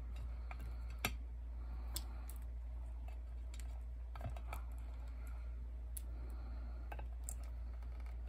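Scattered light clicks and taps of small plastic LOL dolls being picked up and set down on a metal tray, the sharpest about a second in, over a low steady hum.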